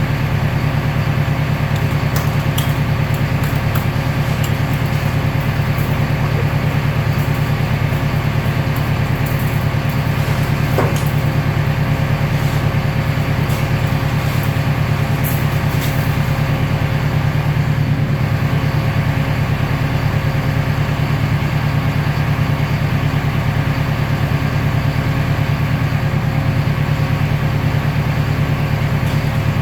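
Industrial baler running steadily: a loud, even low machine drone, with a few light clicks and rattles and one brief squeak about eleven seconds in.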